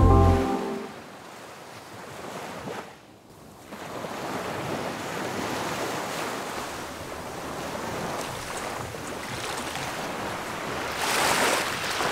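Small waves washing onto a sandy beach, a soft steady surf with some wind on the microphone, growing louder near the end. Background music fades out in the first second.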